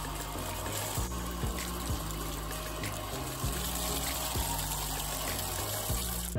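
Bathtub faucet running steadily, water pouring over wet hair and splashing into the tub, with background music underneath.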